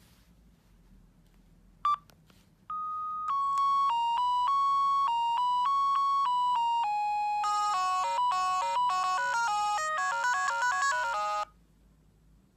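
Bird S1150 mobile phone playing one of its built-in ringtones through its small speaker: a synthesized beeping melody, slow single notes at first, then faster with several notes at once, cutting off abruptly near the end. A short beep comes about two seconds in, before the tune starts.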